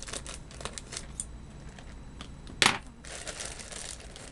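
Shipping package crinkling and rustling as it is handled and opened, with one louder, brief crackle about two and a half seconds in.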